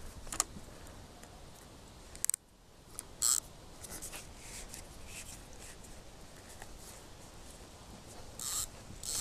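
Faint clicking and handling noises from a fishing rod and fixed-spool reel as the line is wound and the rod is handled after a short lob cast, with a sharp click about two seconds in and a couple of brief hissing swishes.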